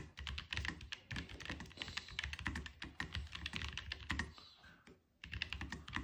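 Typing on a Keychron K9 Pro 60% mechanical keyboard with slim low-profile red switches: a fast, steady run of key clicks that stops briefly a little past the middle, then resumes.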